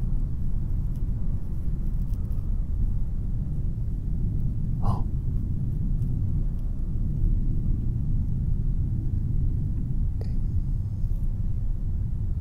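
Low, steady rumbling drone of a horror film's ambient sound bed, with a brief faint higher sound about five seconds in.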